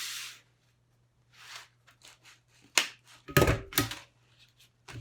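Stapler pressed through the folded rim of a paper plate: a sharp click about three seconds in, followed by a quick cluster of heavy thunks.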